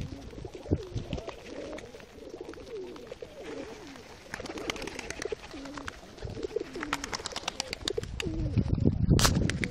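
A flock of fancy pigeons cooing over and over, many short rolling calls overlapping, with scattered sharp ticks among them. A louder rushing sound builds up near the end.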